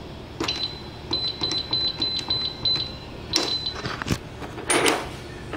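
Electronic keypad of a digital lock cabinet beeping with each button press as a code is keyed in: a run of short high beeps with faint button clicks, then a quicker group of beeps. Near the end come a sharp click and a short noisy burst.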